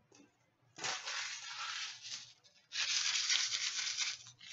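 Foil card-pack wrapper crinkling and being crumpled in two long rustling bursts.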